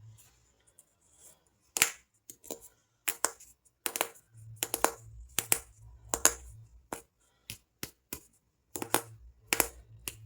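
Sharp, irregular clicks and snaps, more than a dozen, from soap bars being unwrapped and cut, with a faint low hum in between.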